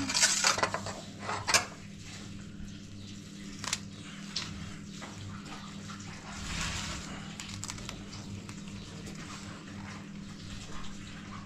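Clatters and knocks of objects being handled over a steady low hum, with a quick run of clattering in the first couple of seconds and only scattered knocks after that.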